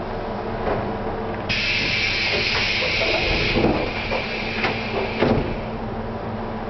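A stationary 475-series electric train's equipment humming steadily, heard in the driver's cab; about a second and a half in, compressed air hisses loudly for about two seconds, then fades, with a couple of thumps near the end.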